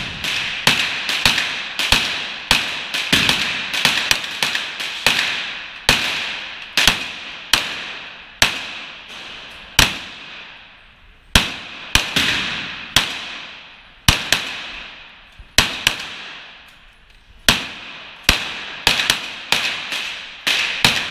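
Two semi-automatic pistols firing a long string of shots, about one to three a second and irregular, the two shooters' shots sometimes landing close together. Each shot is a sharp crack followed by a ringing echo off the enclosed indoor range.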